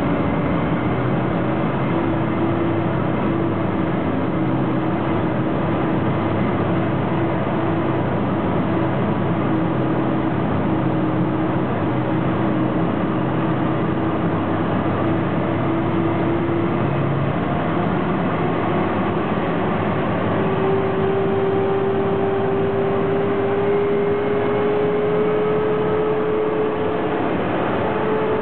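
Car cabin noise at highway speed: a steady rush of tyre and road noise under an engine hum whose pitch rises a little past the middle.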